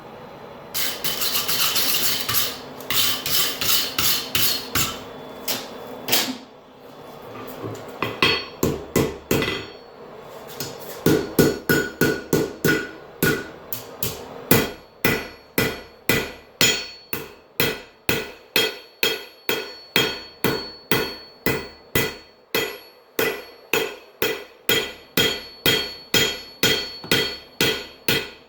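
Hand hammer striking a hot railroad spike on an anvil, forging it into a shoehorn: a long run of sharp, ringing blows at about two a second, after a brief rush of noise about a second in and a short pause.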